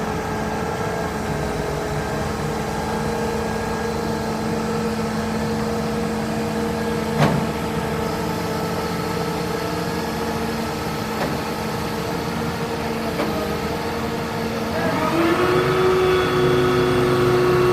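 A heavy engine running steadily, then revved up about fifteen seconds in and held at higher speed. A short sharp sound cuts in briefly about seven seconds in.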